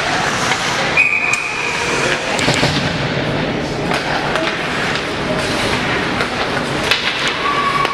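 Ice hockey game heard from the stands: skates scraping the ice and sticks and puck clacking in frequent sharp knocks over a steady din of the rink and spectators, with a short high held tone about a second in.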